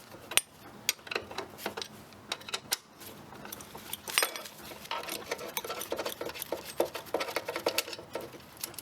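Spanner working a nut off a steel bolt on a reel mower's frame: a run of irregular light metal clicks and clinks, coming thicker about halfway through.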